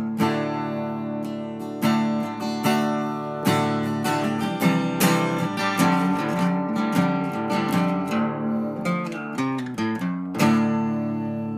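Background music: acoustic guitar picking and strumming chords, ending on a last strummed chord about ten and a half seconds in that rings out and fades.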